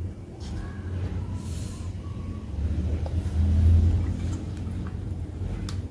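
Clear coat being poured from a glass beaker through a paint strainer into a spray-gun cup, over a steady low rumble that swells about three seconds in.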